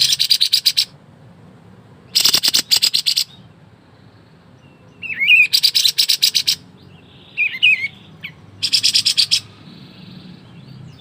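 A kapas tembak, a small bulbul kept as a songbird, singing its rapid-fire song. Four fast rattling volleys of about a second each, the clipped 'ngebren' shots it is prized for, come a couple of seconds apart, with two brief warbled whistles between them.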